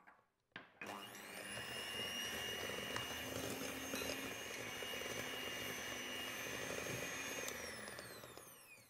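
Electric hand mixer starting after a couple of clicks about a second in, its motor whining steadily as the steel beaters work butter and egg yolk in a glass bowl. Near the end it is switched off and the whine falls in pitch as the motor winds down.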